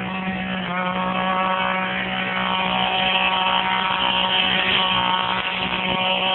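A small engine running steadily at a constant speed, a little louder through the middle.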